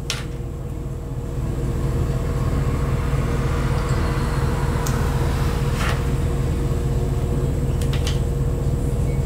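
Steady low mechanical hum with a steady whine over it, like a running appliance, growing a little louder after about a second and a half. A few short light clicks come in the second half.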